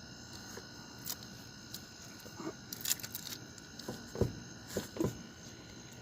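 Crickets chirping steadily, with a few scattered knocks and clinks of metal as the old truck's front wheel and suspension are rocked and handled to check for play in the ball joints.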